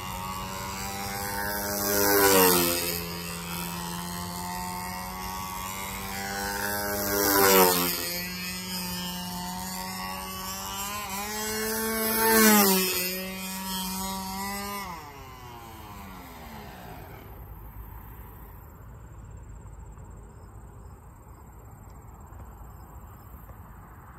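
Radio-control model airplane's motor and propeller making three low fly-bys about five seconds apart, each swelling to a peak and dropping in pitch as it passes. About fifteen seconds in the motor is throttled back and its pitch slides down and fades as the plane comes in to land, leaving faint low background noise.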